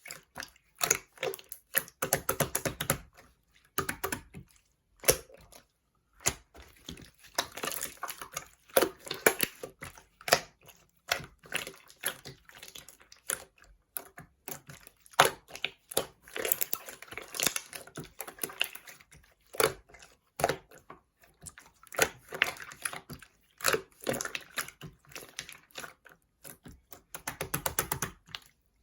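Slime being pressed, squished and poked by hand, making a dense run of irregular clicks and crackling pops, pausing briefly a couple of times.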